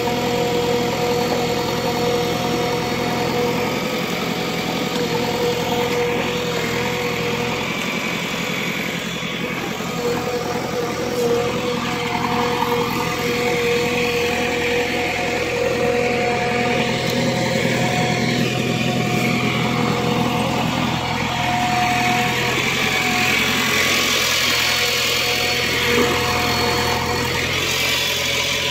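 JCB backhoe loader's diesel engine running steadily close by, with a steady whine over it.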